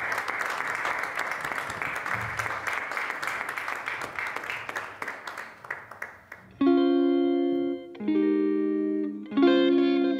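A dense patter of clicks dies away over the first six seconds. Then a hollow-body electric guitar plays three sustained chords through its amplifier, each struck sharply and left to ring for over a second.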